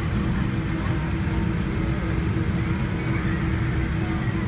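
Cabin noise of a Boeing 787-9 airliner on the ground before takeoff: a steady low rumble with a constant hum.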